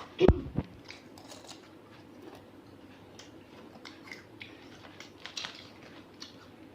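Someone chewing crunchy Ciki snacks, with faint crunches scattered throughout. A sharp thump about a third of a second in is the loudest sound.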